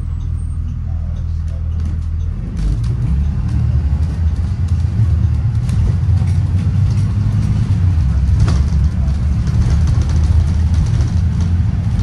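Inside the cabin of a 2016 Blue Bird Vision school bus under way: a steady low engine and road rumble, which gets louder about two and a half seconds in.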